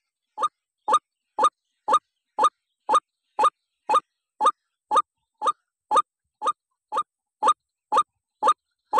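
White-breasted waterhen (ruak-ruak) calling: short calls repeated evenly, about two a second.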